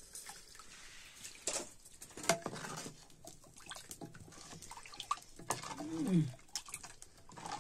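Metal ladle stirring a thin liquid in a blackened iron pot over a wood fire: light sloshing with irregular clinks and scrapes of the ladle against the pot. A short falling vocal sound is heard about six seconds in.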